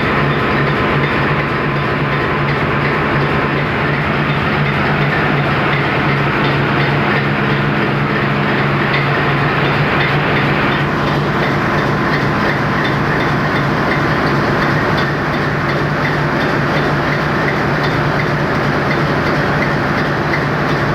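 A tugboat's main diesel engine running steadily under test, loud, with a steady low drone and a dense mechanical clatter.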